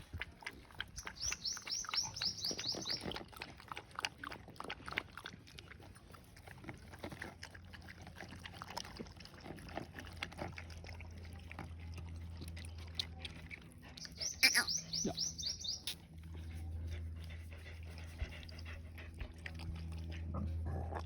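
Stray dogs and puppies lapping milk and eating: a run of wet smacking and clicking sounds. A high, rapid chirping trill cuts in twice, briefly, the second time the loudest sound here.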